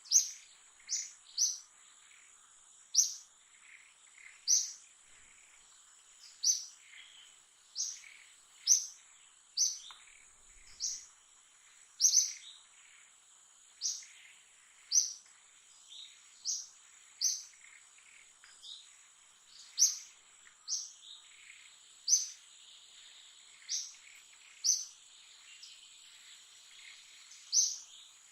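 Short, high chirps repeated roughly once a second, most likely a bird calling, over a steady high-pitched insect drone.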